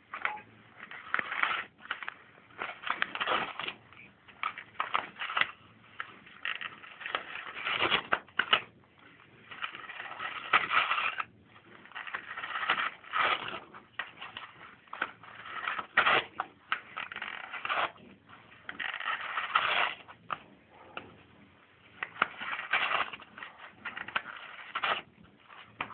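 Cat chewing and pulling at toilet paper, the paper rustling and crumpling in irregular noisy bursts with short pauses between.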